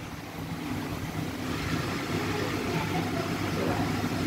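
Steady low hum and rumble of machinery, with indistinct voices coming in near the end.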